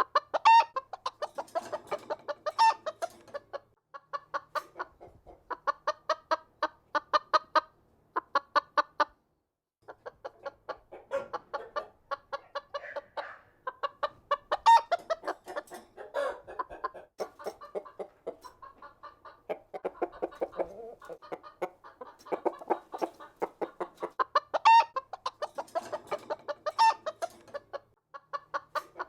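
A flock of chickens clucking, many birds overlapping in quick runs of short clucks, with a brief lull about nine seconds in.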